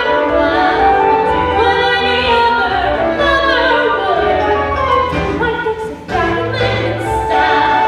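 A musical-theatre song sung over accompaniment, with a short break in the voice about six seconds in.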